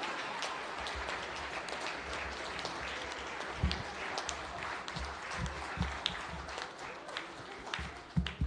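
Audience applauding steadily, with a few low thumps in it, dying down near the end.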